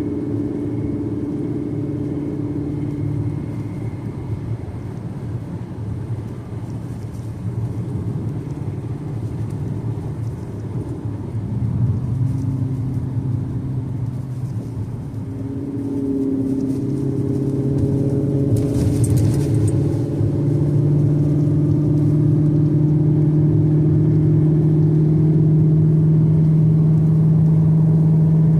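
Car engine running, its pitch and level stepping up about halfway through and again a few seconds later, then holding steady. A brief hiss about two-thirds of the way in.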